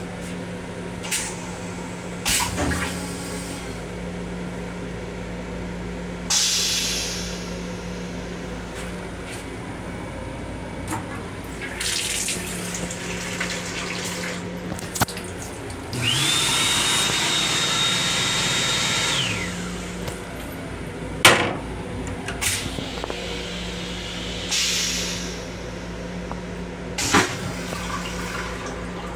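Restroom sounds in a Long Island Rail Road M7 railcar over a steady low hum: the sink faucet running, short rushes of water and several sharp clicks. The loudest event is the sink unit's hand dryer, which whirs up, blows for about three seconds and winds down.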